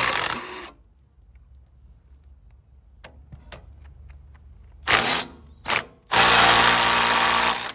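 Cordless power tool spinning off the 14mm bolts of a differential back cover: a short burst ending under a second in, two brief bursts near the middle, then a longer steady run of about a second and a half near the end, with a few light clicks in between.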